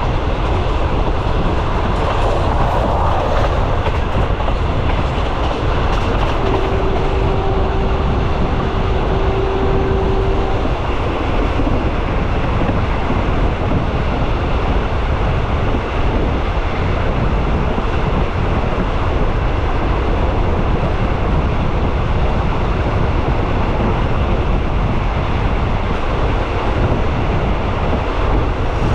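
Train running along the rails with a steady, continuous running noise. A single steady tone sounds for about four seconds, starting a little over six seconds in.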